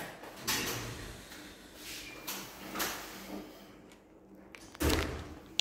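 Handling noise: rubbing and scraping of hands on the total station's plastic housing and the table, with a few soft knocks and a loud bump a little under five seconds in.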